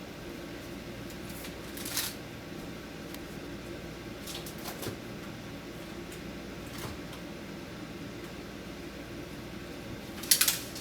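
Food packages and containers being handled and set on refrigerator shelves: a few light knocks and rustles over a steady low hum, with a quick cluster of sharp clicks near the end.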